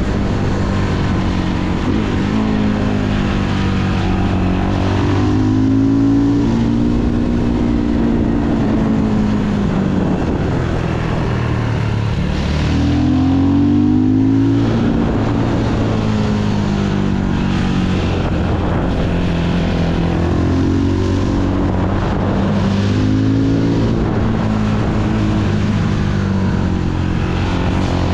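Fantic Caballero 500 scrambler's single-cylinder engine running under way, its pitch repeatedly climbing as the throttle opens and dropping back as it closes.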